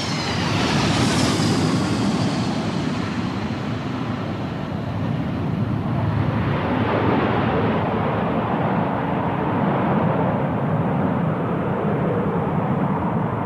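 Jet noise from a low-flying Boeing B-52 Stratofortress's eight jet engines. A high whine falls in pitch over the first couple of seconds as the bomber passes, then settles into a steady rushing noise as it flies away.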